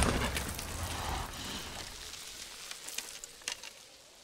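Film sound effects: the low rumble of an explosion dying away while debris and grit patter down, with a few sharp ticks of falling fragments about three seconds in.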